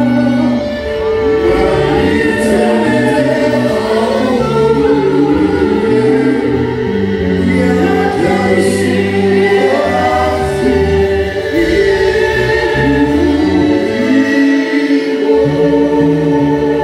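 A gospel worship song: several voices singing together over held low instrumental notes.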